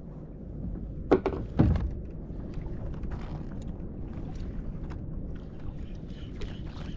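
Water noise around a fishing kayak, with two sharp knocks about a second in, half a second apart, and light scattered clicks afterward.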